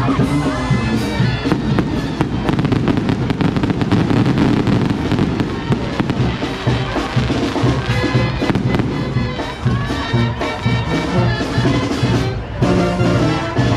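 Fireworks crackling and popping in a rapid, dense string of small bangs over loud music.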